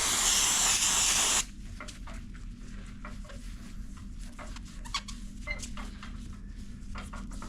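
Aerosol disc brake cleaner spraying onto a brake lever in a steady hiss that stops about a second and a half in, followed by faint light clicks and rubbing.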